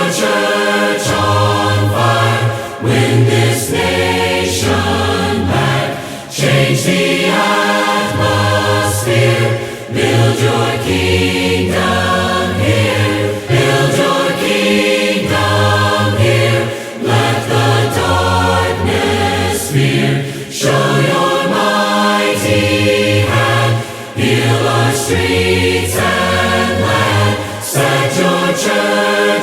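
Contemporary worship song: a group of voices singing together over a band with a steady beat.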